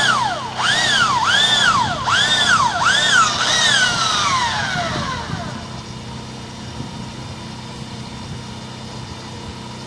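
High-speed motor of the root-cutting drain tool, its trigger pulsed so the whine rises and falls about five times before it winds down and stops around five seconds in. A steady low hum carries on underneath.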